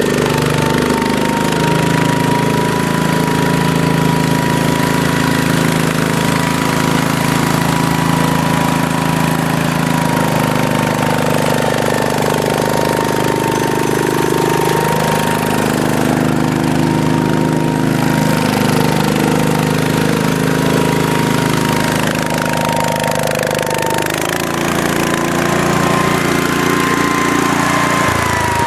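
Wheel Horse C101 lawn tractor's 10-horsepower cast-iron Kohler single-cylinder engine running steadily as the tractor is driven, its pitch shifting a little now and then, with a thin steady high whine above the engine note.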